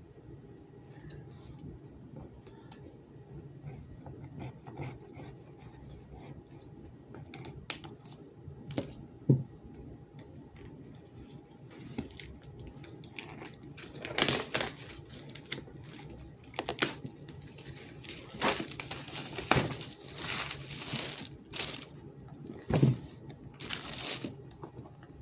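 Packaging on a new iPad box being torn and crinkled by hand, with scattered light clicks and knocks of the box being handled. The rustling is thickest in the second half, with a few sharper taps.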